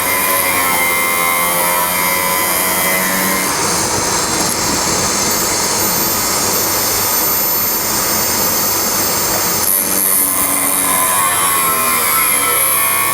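End mill sharpening machine's grinding wheel running and grinding a flute of an end mill, a loud steady machine noise. It turns harsher and denser from about three and a half seconds in until about ten seconds in.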